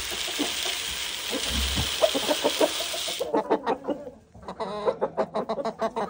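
Chicken feed poured from a scoop into a plastic feeder, a steady hiss that stops about three seconds in. Hens cluck throughout, more plainly once the pouring stops.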